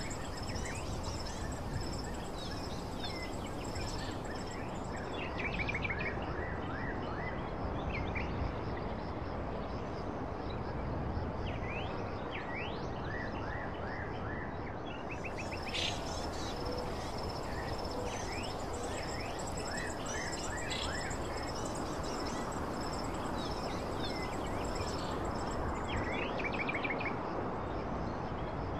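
Nature-sounds ambience: a steady noise bed with many small birds chirping in quick short calls, and a high, unbroken insect-like whine.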